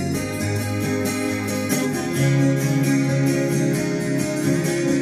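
Acoustic guitar strummed in a steady rhythm, its chords ringing between the sung lines.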